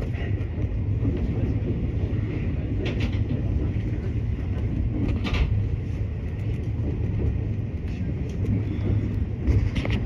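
Electric train heard from inside the front of the cab, running at reduced speed for strong wind: a steady low rumble of wheels on the rails. A few brief sharper sounds come through about 3 and 5 seconds in and again near the end.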